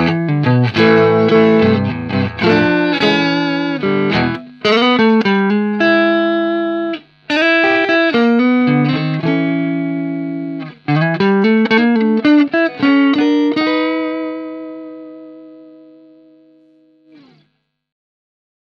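Guitar playing a run of plucked notes and chords, ending on a held chord that rings out and fades away over about three seconds before it is damped.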